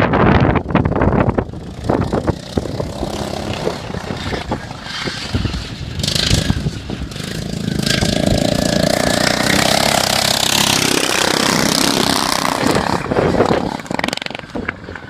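Racing lawn mower engines running hard, with wind buffeting the microphone; the engine tone steadies and grows louder about halfway through.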